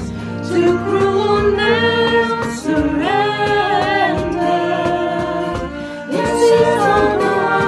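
Men's and women's voices singing a hymn together, accompanied by flutes, piano and cajon, with a short break between sung lines about six seconds in.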